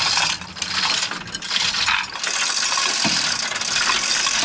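Manual chain hoists being worked by hand: chain rattling through the hoists with ratcheting clicks, in spells broken by short pauses.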